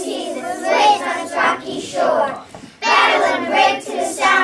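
A class of young children singing together in unison, with a short break about two and a half seconds in.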